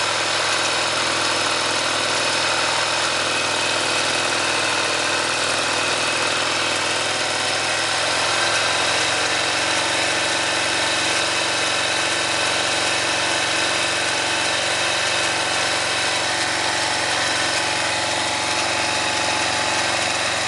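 Honda Rincon ATV single-cylinder engine idling steadily, with no revving.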